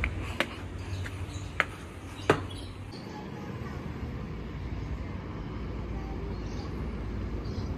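Footsteps climbing a steel-framed staircase with wooden treads: three sharp knocks in the first two and a half seconds, the last the loudest. After that only a low steady rumble.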